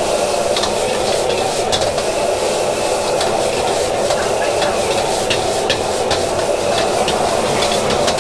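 Fried rice being stir-fried in a wok over a gas flame: a metal ladle scraping and clanking against the wok many times over a steady hissing rush of the burner and frying rice.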